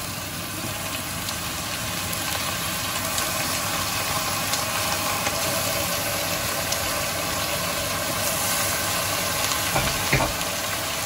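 Raw chicken pieces sizzling in hot oil and sautéed onions in an aluminium pressure cooker: a steady frying hiss, with a couple of short knocks about ten seconds in.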